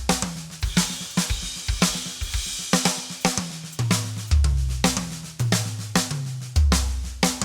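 Acoustic drum kit played live: snare strokes and tom strokes stepping down in pitch around the toms, with bass drum hits and a crash cymbal, about two to three strokes a second. It is a relaxed, full-sounding stroke that drags the hand from drum to drum.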